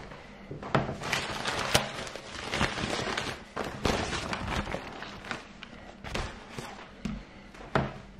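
Kitchen handling noises: rustling with a string of sharp knocks and clunks, and near the end a thump as a raw duck breast is laid on an end-grain wooden chopping board.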